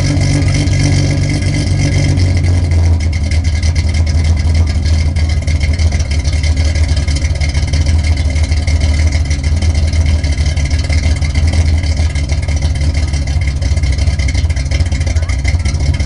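1974 Datsun 260Z's 2.6-litre straight-six, on twin SU carburettors, idling steadily with a lumpy, lopey beat that sounds like it has a cam, its exhaust leaks temporarily plugged. The tone shifts slightly about three seconds in.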